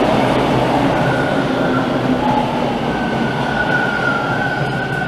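Toronto subway trains pulling into an underground station, with a dense rumble of wheels on rail that slowly eases. A high steady whine comes in about a second in and again from about three seconds on, and a lower tone sounds for a while in between.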